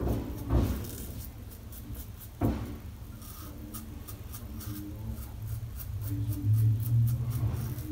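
Karve brass safety razor, fitted with a Gillette Super Stainless blade on its 19th shave, scraping stubble through shaving lather around the upper lip in a quick run of short, scratchy strokes, with two sharper knocks early on.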